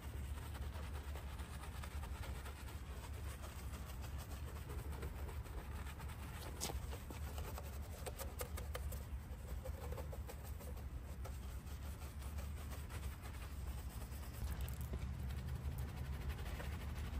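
Soft-bristled detailing brush scrubbing soapy car paint and trim: a fast, rough swishing of bristles through foam, with a few sharp ticks around seven to nine seconds in, over a steady low rumble.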